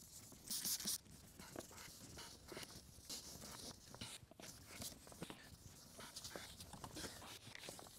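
Faint wet sanding of a plastic headlight lens with 2000-grit sandpaper on a soft sanding pad, in scratchy, irregular rubbing strokes. A short hiss of water from a trigger spray bottle comes about half a second in.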